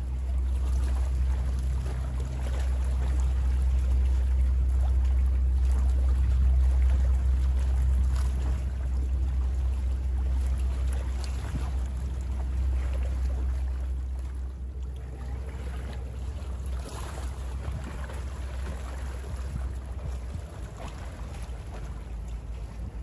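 Small bay waves lapping and splashing close by, over the low steady drone of a boat engine that fades away near the end.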